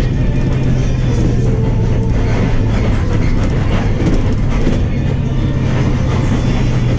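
Engine of a Higer KLG6770G bus running with a steady low drone under way, heard from inside the passenger cabin, with road noise and light rattling of the body.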